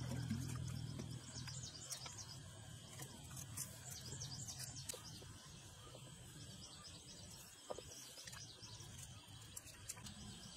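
Small birds chirping over a faint outdoor background, with a low hum that fades away over the first few seconds. A few light clicks and knocks come from the plastic hose being handled against the pump about two-thirds of the way through.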